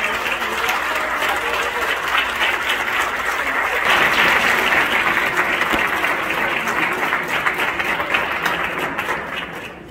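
Audience applauding, swelling about four seconds in and dying away near the end.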